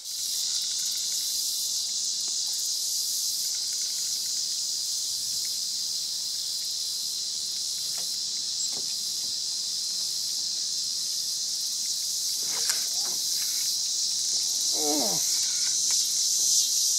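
Dense, steady, high-pitched chorus of insects buzzing and trilling without a break.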